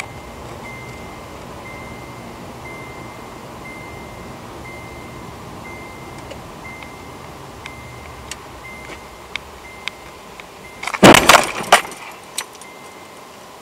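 Car collision heard from inside the car: steady engine and road noise with a short beep repeating about once a second, then about eleven seconds in a loud crunching impact with several quick hits, under a second long, as a VAZ-2105 Lada runs into the front of the car.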